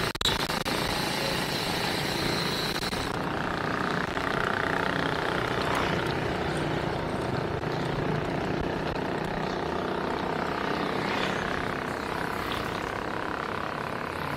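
Steady rush of wind and road noise on a handlebar-mounted camera while riding a bicycle along a paved street; the high hiss drops away about three seconds in.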